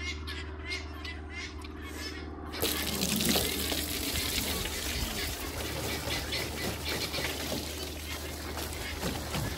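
Water from a hose running into an animal water trough. It starts abruptly about two and a half seconds in and then runs steadily.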